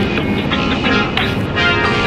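Music playing over the steady running noise of a motorcycle on the highway.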